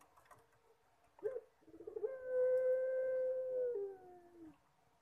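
Puter pelung, a long-calling Javanese variety of domestic collared (barbary) dove, cooing. A short rising note about a second in and a stutter of quick notes lead into one long, steady, drawn-out coo that steps down slightly and fades near the end. This is the crying-like call the variety is kept for.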